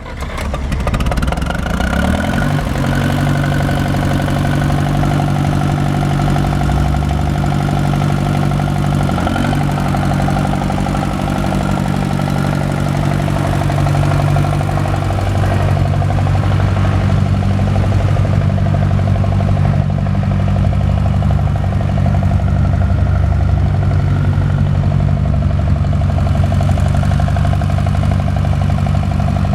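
1965 John Deere 1010 tractor's four-cylinder engine running. Its pitch rises about two seconds in, then settles into a steady idle.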